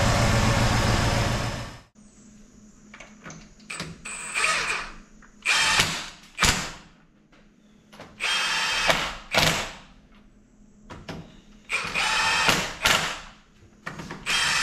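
A 1994 Cadillac Fleetwood's 5.7-litre V8 running smoothly, its exhaust leak fixed, cutting off about two seconds in. Then a run of short mechanical rattling bursts, each under a second, as a floor jack is worked under the car.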